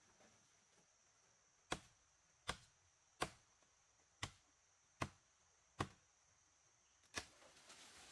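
Wood being chopped with a blade: seven sharp blows, about one every three-quarters of a second, each with a short ring, then a rustling noise near the end.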